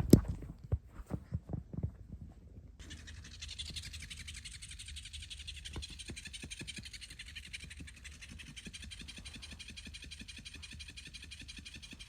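A kitten purring loudly, with a few sharp knocks of handling in the first three seconds.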